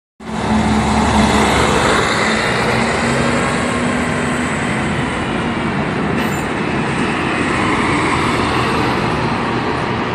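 A tram passing at close range: a steady, loud rumble and hiss of its wheels on the rails, with a low hum through the first few seconds.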